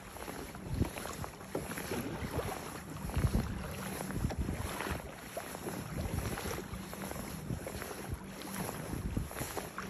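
Water rushing and lapping along the hull of a Hobie Outback pedal kayak under way, with wind gusting on the microphone.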